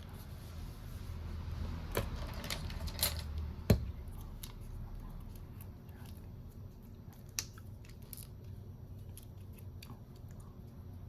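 Scattered small clicks and taps of hand tools on a smartphone during a repair, with a sharp click just under four seconds in the loudest, and lighter ticks later on.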